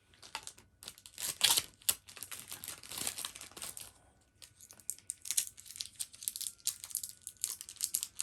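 Plastic packaging crinkling and tearing as it is handled: a dense run of crackles that eases off about four seconds in, then scattered crackles and clicks.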